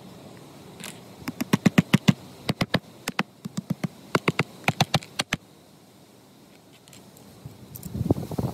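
A quick run of sharp, loud taps, about four or five a second, lasting some four seconds, then rustling near the end: pegs being tapped into the lawn to tack down a robotic mower's magnetic guide wire.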